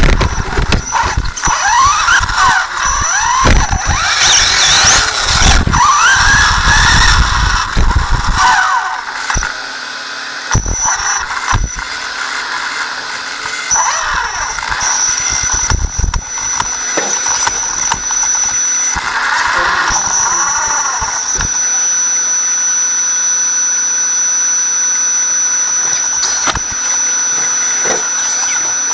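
RC car's motor and gears whining, rising and falling in pitch with the throttle, with knocks from bumps and landings on the dirt, for about the first nine seconds. Then the car sits still and only a steady high whine remains.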